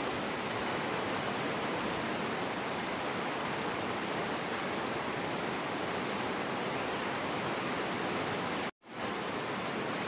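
River water rushing steadily through whitewater rapids over rocks in a narrow gorge. The sound cuts out for an instant near the end and fades back in.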